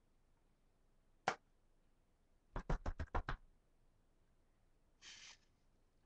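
Snuff tin being handled close to the microphone: a sharp click, then a quick run of about seven taps in under a second, and a short hiss near the end.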